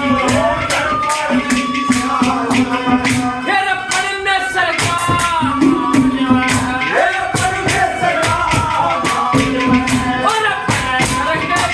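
Haryanvi ragni folk music: a wavering melody over a steady low drone, with a fast, even beat of high, bright percussion.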